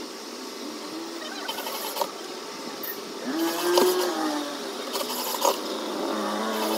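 Handheld electric drill driving screws into a plywood frame, its motor speeding up and slowing in several short runs, with a few sharp clicks.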